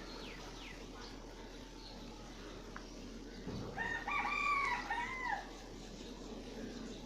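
A rooster crowing once, about four seconds in: a single cock-a-doodle-doo that rises and falls in pitch, over steady background noise.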